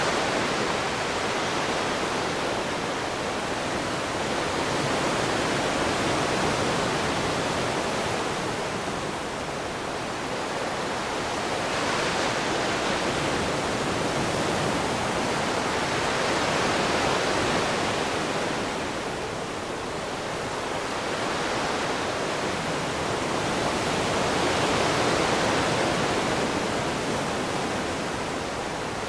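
Ocean surf: a continuous rush of waves washing onto a shore, swelling and easing every several seconds.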